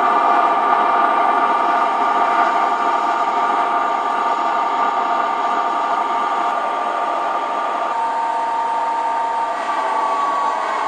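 O scale model Canadian Pacific diesel locomotives running along the track: a steady mechanical hum with several steady high tones, shifting slightly near the end.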